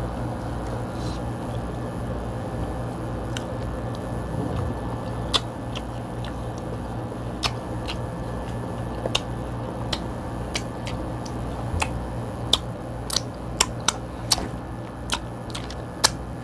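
Eating king crab by hand: scattered sharp clicks and cracks of shell and mouth, more frequent from about five seconds in, over a steady low hum.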